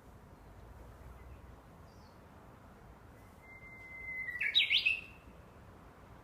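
Japanese bush warbler (uguisu) singing one song phrase, beginning about halfway through: a long, swelling whistled note that breaks into a quick flourish of rising and falling notes, the 'hoo-hokekyo' song.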